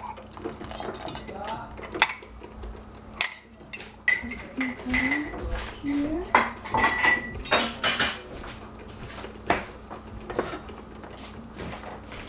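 A glass jar and a metal utensil knocking, scraping and clinking against a stainless steel pot as hot fig jam is scooped into the jar: a run of irregular knocks and clinks, a few ringing briefly.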